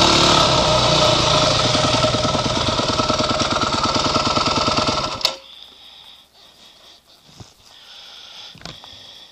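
Dirt bike engine idling with a steady, even pulse, then shut off abruptly about five seconds in; afterwards only a couple of faint clicks.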